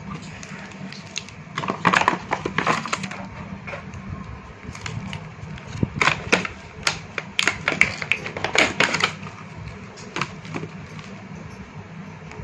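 Clicks and rattles of the small tools and packaging of a tubeless tyre puncture repair kit being handled, in two clusters of quick knocks with pauses between, over a steady low hum.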